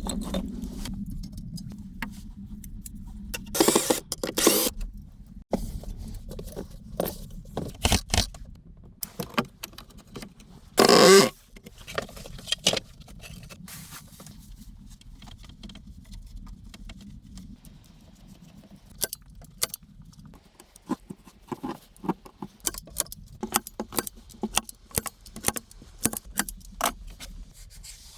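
Irregular clicks, knocks and scrapes of objects being handled, with two louder rustling bursts about four seconds and eleven seconds in.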